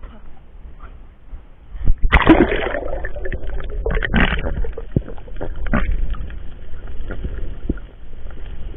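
Water sloshing and bubbling around an underwater camera housing, with scattered knocks and clicks and a low rumble; a loud rush of bubbling starts about two seconds in.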